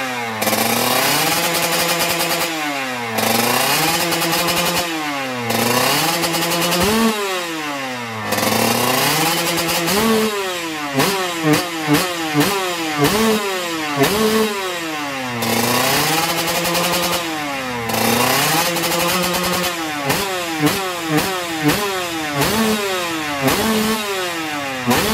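Kawasaki Ninja two-stroke single-cylinder motorcycle engine revved up and down over and over. The first half has slow swells of rising and falling pitch. The second half has a run of quick, sharp throttle blips.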